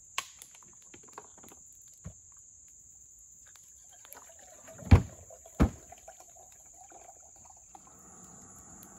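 Crickets buzzing steadily, with clicks and knocks of camp gear being handled and two loud thumps about five seconds in. Near the end a steady rushing hiss starts: a camp stove burner lit.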